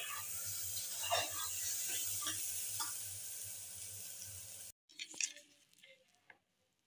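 Water and oil sizzling steadily in a hot pressure cooker around peeled whole potatoes, with a few light clinks. It cuts off abruptly after about four and a half seconds, leaving only faint scrapes of metal utensils.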